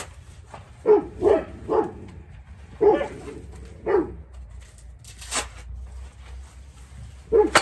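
A dog barking: about six short barks in a loose, irregular series, most of them in the first half.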